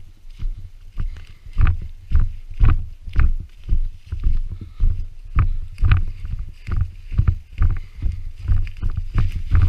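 Footsteps going downhill through dry fallen leaves, about two heavy thuds a second, with the jolt of each step on the camera and the rustle of leaves.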